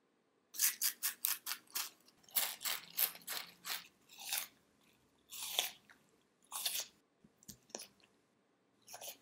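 Crunchy chewing and biting sounds. A fast run of sharp crunches starts about half a second in, then slower, more spaced crunches thin out toward the end.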